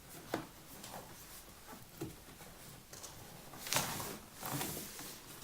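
A tool bag being slid out of its cardboard box: intermittent scraping and rustling of cardboard with a few short knocks, the loudest knock and rustle about four seconds in.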